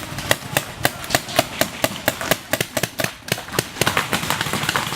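Paintball markers firing: a quick, uneven string of sharp pops, several a second, with a short lull about three seconds in.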